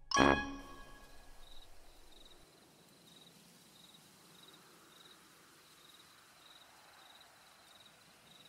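A final ringing note from string music dies away in the first two seconds. Then faint crickets chirp steadily, about two chirps a second, as night-time background.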